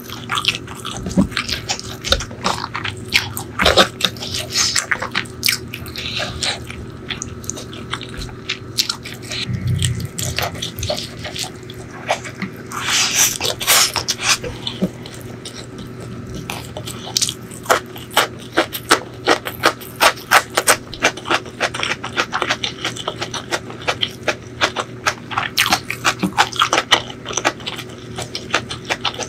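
Close-miked eating sounds: fingers squishing and mixing rice with chicken liver and gizzard curry, then wet chewing of a mouthful of rice with rapid mouth clicks and lip smacks.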